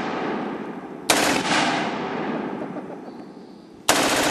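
MG-34 belt-fed German machine gun (7.92 mm Mauser) firing fully automatic bursts: the tail of one burst, a new burst about a second in and another near the end, each starting sharply and fading over a couple of seconds.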